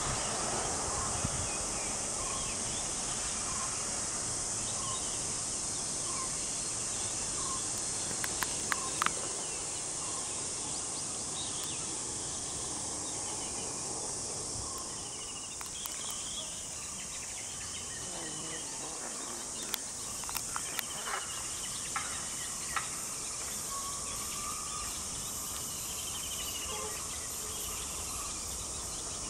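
Steady high-pitched insect drone with birds calling over it: one bird repeats a single short note about once a second for the first eight seconds, other chirps come later, and a few sharp clicks stand out.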